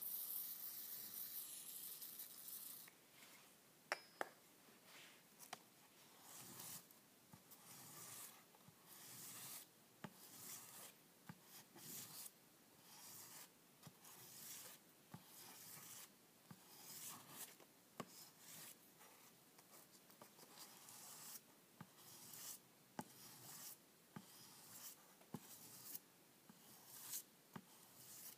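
An aerosol can hisses for about three seconds as lubricant is sprayed onto abrasive paper, with a sharp click or two just after. Then a steel axe head is rubbed back and forth on the abrasive paper in steady scraping strokes, a little more than one a second, honing its cutting edge.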